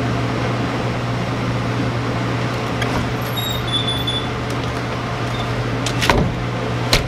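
A steady machine hum with a low drone, and two sharp knocks near the end.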